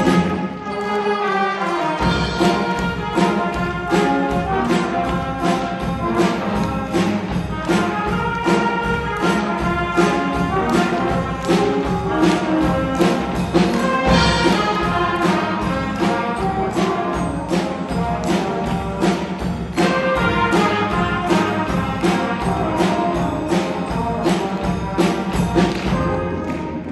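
School brass band playing a piece live, brass instruments carrying the tune over a steady percussion beat.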